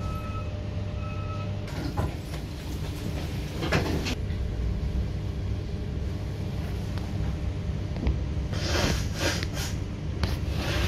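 A train pulling out of the station, heard from inside the carriage: the steady low rumble of the running gear as it gathers speed, with a short repeated beep in the first second. Wheels knock and clatter over rail joints or points a couple of times, then in a quicker run near the end.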